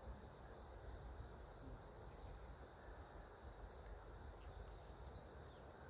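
Faint, steady chirring of crickets, with a low rumble underneath.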